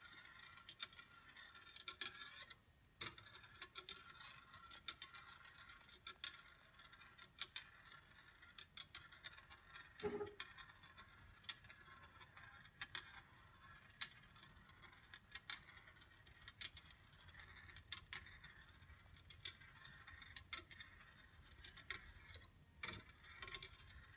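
Congreve rolling-ball clock running: its ball rolls along the zigzag grooves of the brass tray, with many light, irregular clicks and ticks from the ball and the movement. One brief ringing note sounds about ten seconds in.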